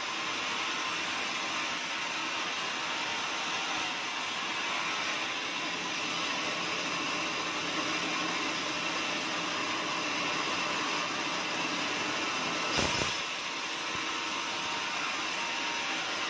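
Band sawmill running with its blade cutting lengthwise through a squared teak (Tectona grandis) block, a steady, even, high-pitched rasping noise. A brief knock sounds about two-thirds of the way through.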